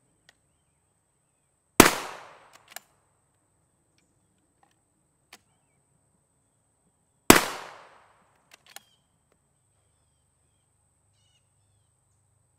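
Two unsuppressed rifle shots from a .300 Blackout Ruger American bolt-action with a 16-inch barrel and a flash suppressor on the muzzle, about five and a half seconds apart. Each is a sharp crack with a short decaying echo, followed within a second by a faint click.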